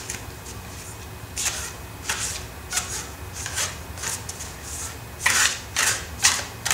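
Cards being shuffled by hand: a series of short, crisp rustles, about eight, irregularly spaced.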